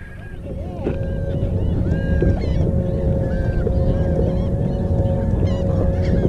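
Wind rumbling on the microphone over open water, with a steady droning tone and many short, repeated bird-like calls.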